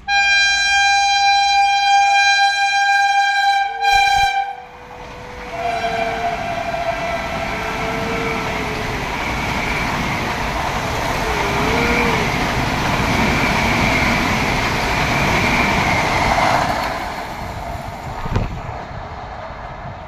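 Vande Bharat Express trainset sounding a long, loud horn blast of about four and a half seconds, followed by a few shorter, lower honks. Then the rushing rumble of the train passing at speed, which fades near the end, with a single knock shortly before it dies away.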